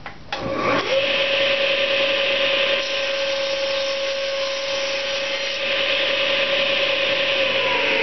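SawStop table saw switched on a moment in, its motor coming up to speed within about half a second and then running steadily as the blade crosscuts two stacked untreated fence-board pieces at once. Near the end the motor begins to wind down, its pitch falling.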